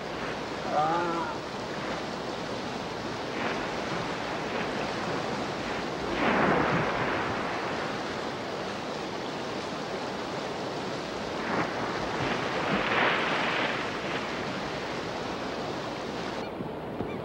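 Rushing river water churned by a brown bear bounding through the current after salmon, a steady wash of water noise with heavier splashing that swells about six seconds in and again around thirteen seconds.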